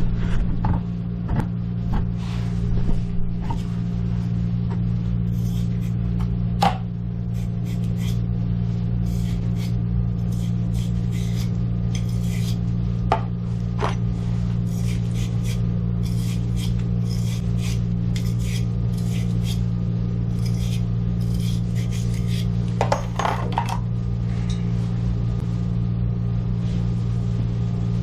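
Plumbing work on a water heater: intermittent light metallic clinks and taps of tools and fittings being handled, over a steady low hum.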